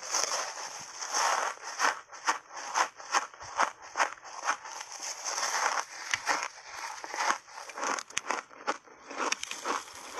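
Ice crunching in the mouth: a block of ice with frozen mixed berries, coated in matcha powder, bitten and chewed, giving a dense run of irregular sharp cracks and crunches.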